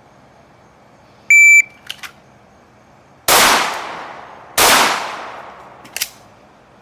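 Shot timer gives one short beep, then two pistol shots about a second and a quarter apart, each with a long ringing decay, as the shooters draw from the holster. A faint click follows near the end.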